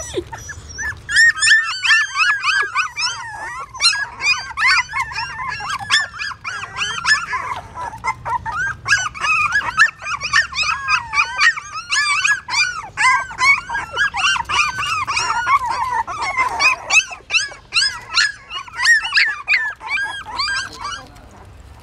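Several newborn puppies crying and whimpering at once in high, rising-and-falling whines, a steady overlapping chorus that stops near the end. They are hungry and seeking their mother's milk.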